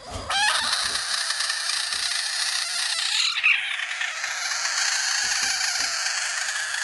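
A large frog, poked with a finger, screaming: one long, harsh, unbroken scream, the defensive distress call of a frog handled or threatened.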